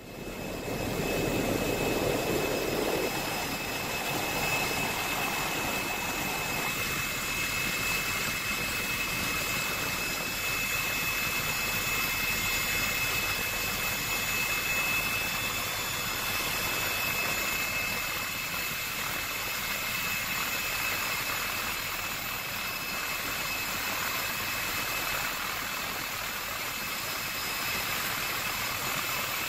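Steady aircraft engine noise with a constant high-pitched whine, heard from on board. It fades in at the very start and is a little fuller for the first few seconds.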